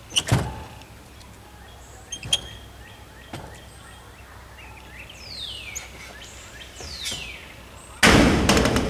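Metal flagpole being worked loose and lowered: a few sharp metallic clinks and taps, two falling squeaks, then a loud rush of noise about eight seconds in as the pole comes down against the metal shed roof.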